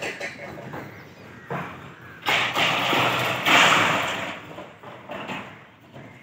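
Grey langurs moving over a corrugated tin roof: rattling thumps on the metal sheets, coming in several bursts, the longest and loudest from about two to four seconds in.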